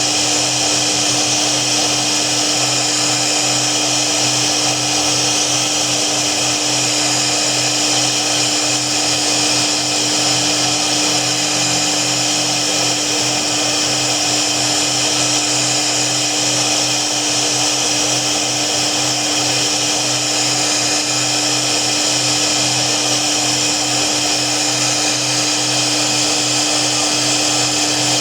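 CNC router spindle running steadily while cutting, a constant whine over a dense hiss that holds unchanged throughout.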